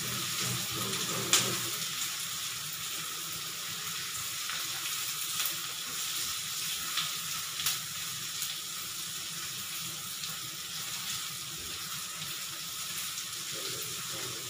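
Chopped onions sizzling in oil in a kadhai as a silicone spatula stirs them, with a few sharp clicks of the spatula against the pan, the loudest about a second and a half in. The onions are being fried until golden brown.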